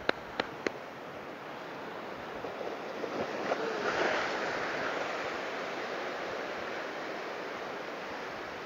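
Ocean surf on a rocky shore: a wave breaks against the rocks about four seconds in, swelling the wash, which then eases into steady foaming water. A few sharp ticks in the first second.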